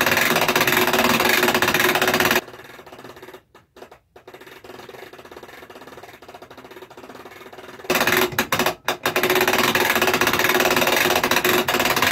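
Hand-cranked ratchet clicking rapidly and continuously as it winds in the strap that pulls an observatory's roll-off roof along its rails. It drops away to a much quieter stretch from about two and a half seconds in, then the fast clicking resumes about eight seconds in.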